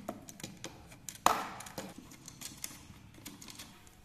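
Light clicks and taps of small metal SMA connectors and a thin coaxial cable being handled and screwed together, with one louder knock about a second in.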